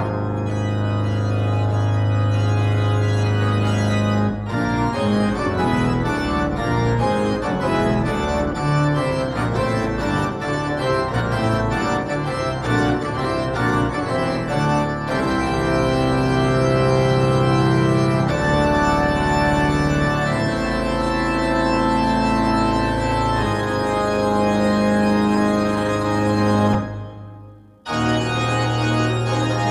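Church organ played in sustained chords with moving notes above and below. The music breaks off briefly near the end, then the playing resumes.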